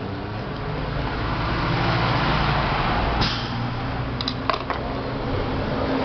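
A steady low mechanical hum that grows a little louder about two seconds in, with a few sharp clicks about three and four and a half seconds in from plastic fan parts being handled.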